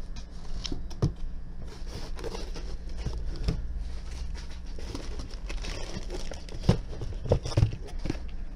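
Cardboard packaging being handled: rustling and scraping of cardboard as a small white box and packing pieces are lifted out of a cardboard shipping box. There are scattered knocks, the sharpest about a second in and a cluster near the end.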